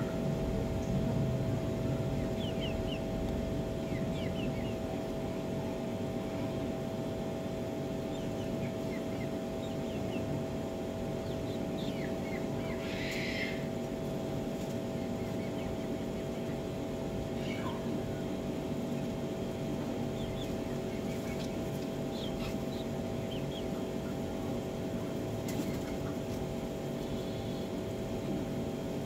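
A steady mechanical hum with a low rumble runs throughout. Faint short bird chirps come now and then over it, and a brief scratchy burst sounds about 13 seconds in.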